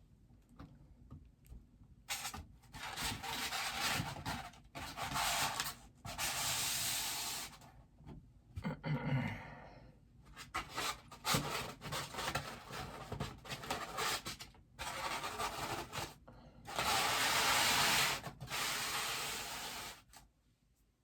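A bobblehead's box and packaging being handled and worked open: repeated scraping and rubbing, in bursts of up to a couple of seconds with short pauses between, as the figure is pulled out. The longest and loudest bout of rubbing comes near the end.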